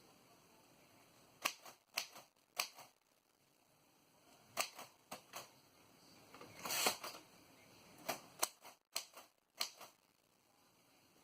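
Royal Quiet De Luxe portable manual typewriter: keys struck one at a time, each a sharp clack, in small irregular groups, with a longer clattering burst about midway.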